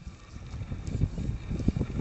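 Strong gusty wind buffeting the microphone: an uneven low rumble that dips briefly near the start and builds again toward the end.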